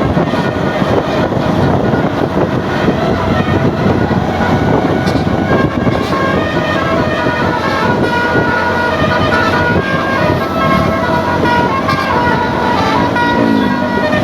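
Bus's basuri telolet horn, a multi-trumpet air horn, playing a melody of quick stepping notes that runs on throughout, over a dense low rumble of engine and road noise.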